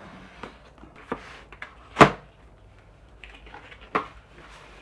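Cardboard packaging being handled and opened, giving a series of knocks and light scrapes, the loudest knock about two seconds in and another near four seconds.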